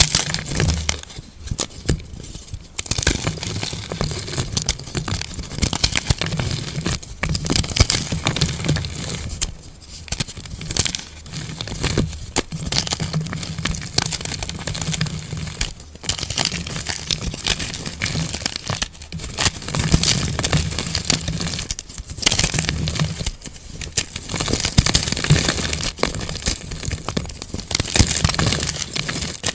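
Plain white gym chalk blocks crushed and crumbled between bare hands: dense crunching and crackling as the chalk breaks into chunks and powder, coming in squeezes with short pauses between them.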